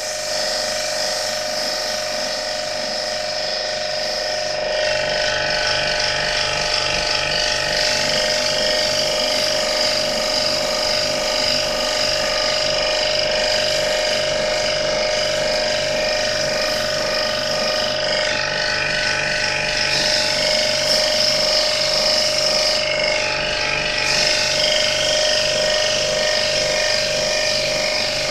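High-pressure washer pump running steadily with a high, constant tone while its water jet hisses, rinsing the inside of a wall-mounted air conditioner.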